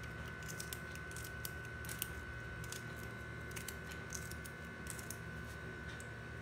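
Small kitchen knife cutting a green chilli held in the hand, making irregular faint crisp clicks as the blade snaps through the pod. A steady faint high tone and low hum lie underneath.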